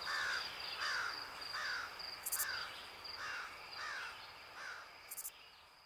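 Nature ambience: crickets trilling steadily while a bird gives a short falling call over and over, about every two-thirds of a second, with a couple of brief high buzzes; it all fades out near the end.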